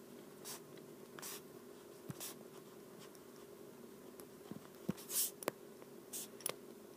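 Stylus writing on a tablet screen: short, faint scratchy strokes at uneven intervals, with a busier cluster about five seconds in, over a faint steady hum.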